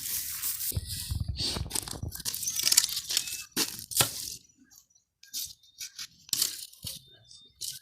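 Dry brush and sticks rustling and crunching as they are handled and piled, with a sharp snap about four seconds in, then only a few light clicks.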